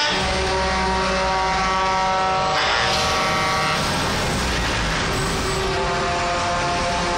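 Convoy of heavy tractor-unit trucks driving past with diesel engines running, under steady held tones that change pitch a couple of times.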